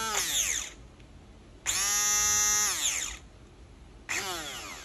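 Braun hand blender motor switched on in short bursts: each time the whine rises as it spins up, holds for about a second, then falls away as it coasts down, three times over.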